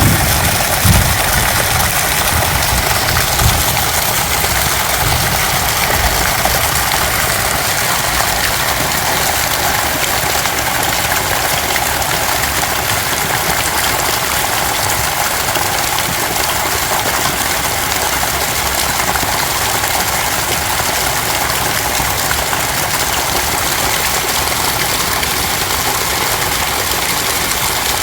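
Heavy rain pouring down in a steady, dense hiss. A few low thumps come in the first few seconds.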